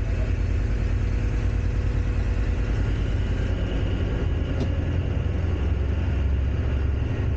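Diesel engine of an HST (Class 43) power car running under power, heard from inside its driving cab as a steady low drone and rumble, with the train's running noise along the track.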